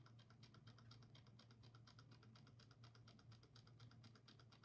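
Near silence: room tone with a low hum and a faint, fast, even ticking.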